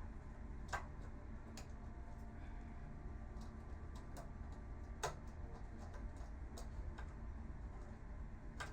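Scattered light clicks and taps from monitor parts being handled during disassembly, with sharper ones about a second in, midway and near the end, over a low steady hum.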